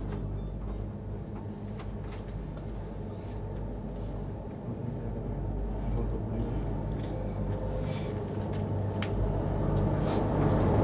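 Aerial ropeway gondola heard from inside its cabin while it runs along the cable into a station: a steady low mechanical hum with a few sharp clicks, growing louder toward the end as the cabin enters the station.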